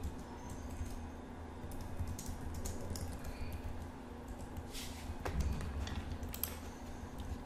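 Typing on a computer keyboard: an uneven run of key clicks over a steady low hum.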